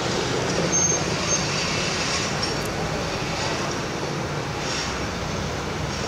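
City street traffic: a vintage electric tram and cars driving past, a steady rumble of motors and tyres. A short high squeak sounds about a second in.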